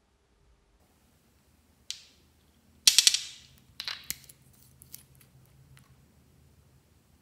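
Sharp clicks and taps from a small glitter wand bottle being handled and its cap twisted open: one click about two seconds in, a loud quick cluster about a second later, another cluster a second after that, then lighter clicks as the brush is drawn out.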